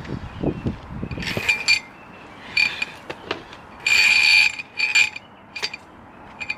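Metal drain-snake cable being fed into a sewer cleanout, scraping and clinking against the pipe in irregular, ringing bursts, the loudest about four seconds in, with a few dull knocks at the start.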